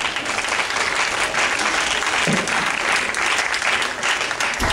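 Audience applauding. A dull thump sounds near the end.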